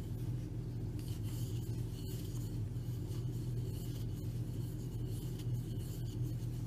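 Faint rubbing and scraping of yarn drawn over a crochet hook and through the fingers as double crochet stitches are worked, over a steady low hum.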